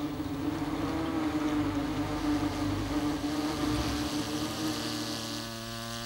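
Wasps buzzing: a steady droning hum of wing-beats with many overtones, shifting to a lower pitch near the end.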